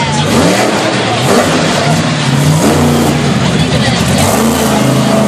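Big monster-truck engines idling heavily, with short blips of the throttle that rev up and drop back three times.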